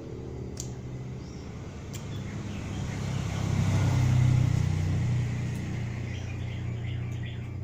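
A motor vehicle passing by: a low engine hum that grows louder to a peak about four seconds in, then fades.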